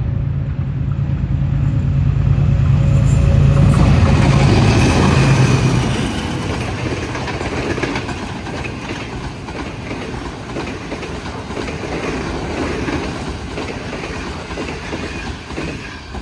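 A Pakistan Railways GEU20 diesel-electric locomotive passing at speed at the head of an express: a loud low engine drone swells to a peak about four to five seconds in, then gives way to the coaches rolling by with a steady clickety-clack of wheels on the track.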